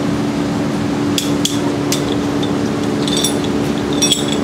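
Sharp metallic clinks of a tool knocking against stainless sailboat rigging turnbuckles, several separate strikes each with a brief high ringing. A steady low hum runs underneath.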